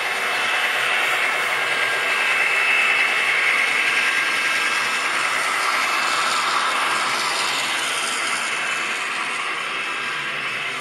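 HO-scale model freight train running past at close range: the diesel locomotives' motors and gears whirring and the wheels clicking on the track, then the boxcars rattling by. The steady mechanical whir is a little louder as the locomotives pass.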